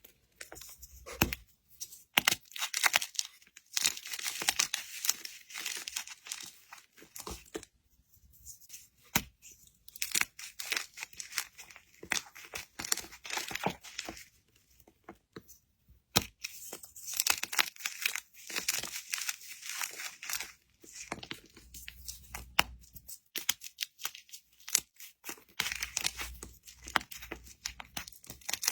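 Close-up crackling and tearing noises of some material being handled, in irregular runs of dense crackles broken by brief pauses.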